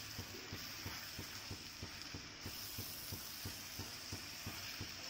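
Wooden spatula stirring mushrooms and masala in a clay pot, giving soft, regular thuds about three or four times a second over a faint steady hiss.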